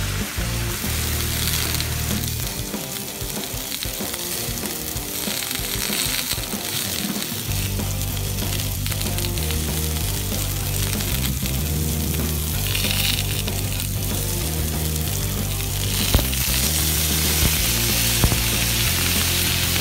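Meat sizzling on a hot iron plate, a steady hiss, with background music carrying a bass line. About three-quarters of the way in the sizzle grows louder as sauce is poured onto the hot plate.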